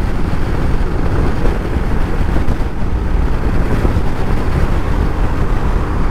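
Steady wind rush buffeting the microphone of a BMW G 310 GS motorcycle riding at road speed, with the bike's single-cylinder engine and road noise running underneath.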